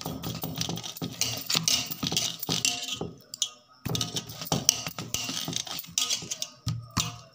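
Boiled potatoes being mashed by hand in a large steel bowl, with a small steel bowl pressed into the mash: irregular clinks and scrapes of steel on steel among soft squashing.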